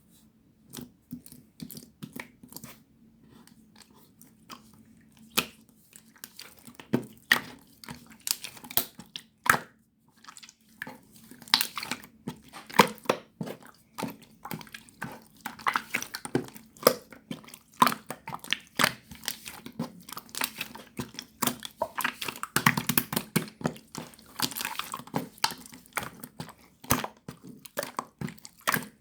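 Bead slime being squished and pressed by hand, the beads in it giving irregular crunchy clicks and crackles, sparse at first and much denser after about ten seconds.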